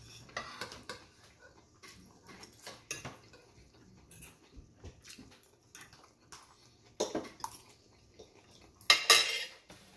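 Metal fork scraping and clinking against a ceramic plate while scooping up food, in short irregular strokes, with the loudest scrapes about seven and nine seconds in.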